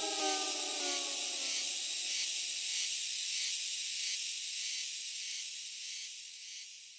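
The song's final notes fade out about a second and a half in, leaving a high, steady cicada drone that fades away near the end.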